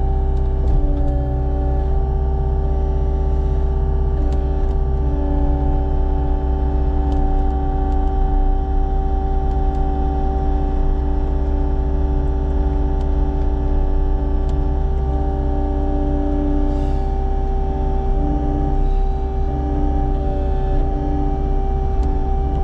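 Heavy land-clearing machine's diesel engine running steadily at a constant speed, a deep drone with steady whining tones over it.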